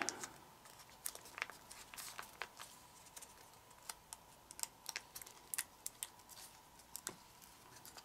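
Sheet of kami origami paper crinkling and crackling softly between the fingers as it is folded and pressed flat, in a scatter of small irregular crackles.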